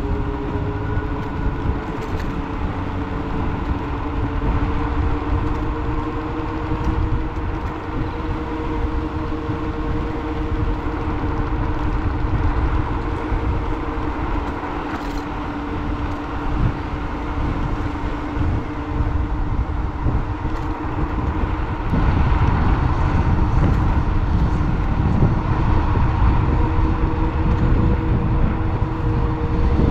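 A road vehicle driving along: the steady drone of its motor over a low rumble of road and wind, getting louder about 22 seconds in.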